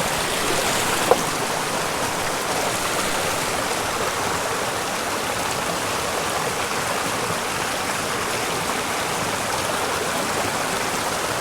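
Small mountain creek running steadily over rocks, an even rush of water, with one brief sharp click about a second in.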